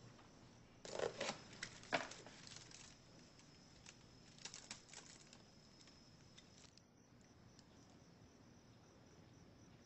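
Paper cake box and plastic bag rustling and crinkling as a hand reaches in for the cakes, in short bursts about a second in, near two seconds and again around five seconds. Under it a faint, steady high-pitched whine.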